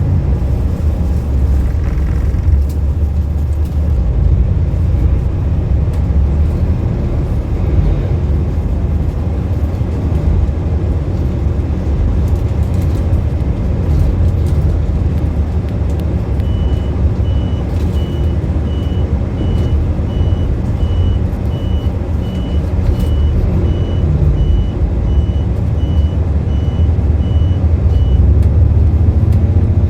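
City bus running, heard from inside the cabin: a steady low engine and road rumble. From about halfway through, a high electronic beep repeats about twice a second for roughly eleven seconds, then stops near the end.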